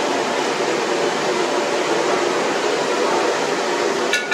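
Steady rushing noise of the commercial gas burner under a large aluminium cooking pot. Near the end comes a single ringing metal clink.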